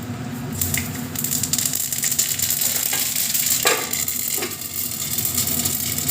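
Mustard seeds spluttering and crackling in hot oil in a kadai: a dense, fast patter of small pops starts about half a second in. A couple of metal knocks come a little past halfway.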